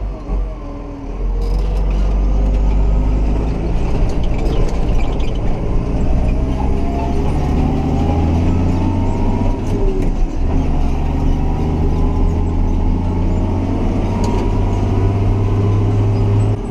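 Massey Ferguson 6270 tractor's diesel engine running steadily under way, with a short dip in the engine note about ten seconds in.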